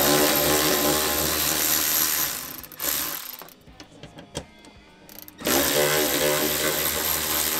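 Cordless electric ratchet with a 10 mm socket on an extension, running in two steady whirring runs of about two and a half seconds each as it backs out cargo-floor tie-down bolts. A few light clicks come in the pause between the runs.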